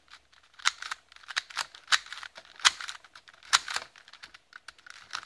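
Plastic clicking and clacking of a 2x2 speed cube as its layers are turned and pushed off-angle to test corner cutting, with sharp, irregular snaps as the pieces slip past each other and settle into place.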